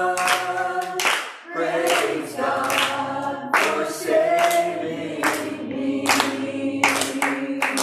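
Voices singing a gospel worship song, with hands clapping on the beat about twice a second.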